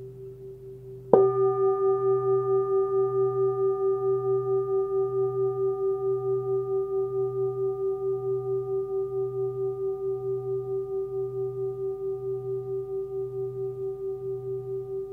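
A 28 cm forged Tibetan singing bowl pitched at about 126 Hz (B), struck once about a second in and left to ring: a long, slowly fading tone with a steady wavering pulse. Before the strike, the faint ring of an earlier stroke is still dying away.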